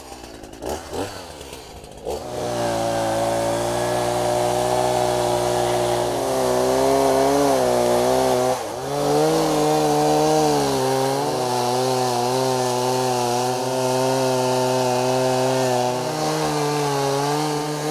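Two-stroke gas chainsaw cutting into the trunk of a hollow pine tree. It runs quieter for the first two seconds, then revs up and holds a steady high-speed note as it cuts, with a brief dip in pitch about halfway through before it picks back up.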